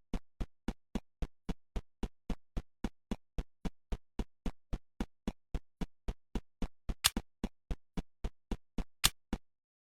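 Electronic pulse beat: a steady train of short low thumps, nearly four a second, with two sharper, brighter clicks about seven and nine seconds in. It stops abruptly shortly before the end.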